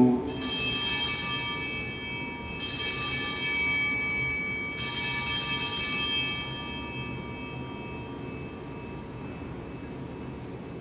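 Altar bells rung three times, once about every two seconds, each ring fading slowly: the signal at the elevation of the consecrated host.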